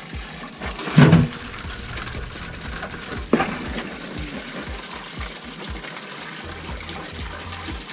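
Water running steadily into a bucket, with a loud thump about a second in and a sharp knock a little after three seconds.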